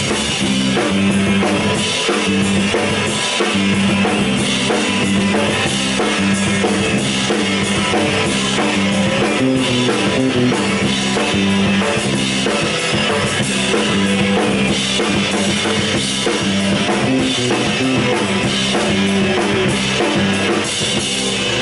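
Live rock band of bass guitar, two electric guitars and drum kit playing an instrumental passage, with the drums to the fore and a steady, loud bass line.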